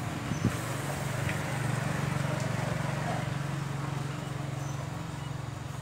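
Belt-driven motor of a pig-roasting spit rotisserie running with a steady hum and a fast, fine rattle, with a single sharp knock about half a second in.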